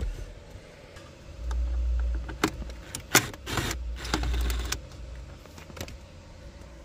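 DeWalt Xtreme cordless drill-driver running in two short bursts, about one and a half and three and a half seconds in, backing out screws that hold car dashboard trim. Clicks and rattles of the bit and plastic trim come between the bursts.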